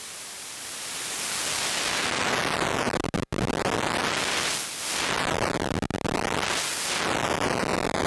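Hexinverter VCNO Eurorack noise oscillator putting out LFSR digital white noise from its terror output, its pitch swept down and back up by hand. The hiss takes on a sweeping, phasing character as the pitch moves, and it cuts out briefly about three seconds in.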